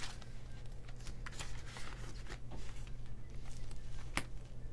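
Paper banknotes rustling as they are slid into a clear plastic cash-envelope sleeve, with irregular crinkles of the plastic and a sharp click about four seconds in as the sleeve page is turned in the binder. A low steady hum runs underneath.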